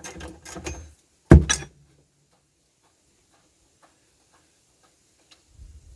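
Parts and tools being handled: a quick run of light clicks and rattles, then two sharp knocks about a second and a half in, followed by a few faint scattered ticks and a short low rumble near the end.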